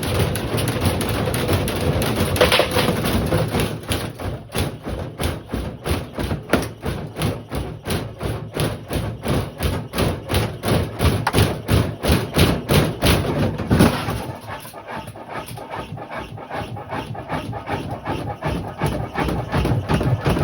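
Lamona LAM8775 washing machine being run to destruction, its drum knocking hard and rhythmically at two to three thumps a second, which eases off to quieter knocking about two-thirds of the way through.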